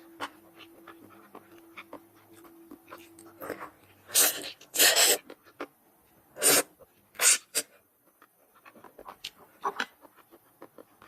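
Close-up mouth sounds of a person eating spicy noodles and chicken feet: soft chewing and lip-smacking clicks, then, about four seconds in, four loud, short sucking sounds over the next three seconds, then quieter chewing again.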